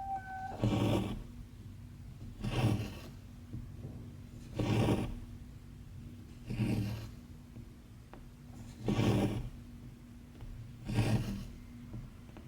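Embroidery thread pulled through cross-stitch fabric, a short raspy swish repeated six times about every two seconds as the stitches are worked.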